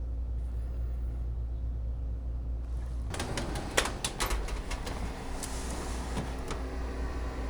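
A steady low hum, joined about three seconds in by a run of clicks and knocks from things being handled, with one sharp knock just before four seconds.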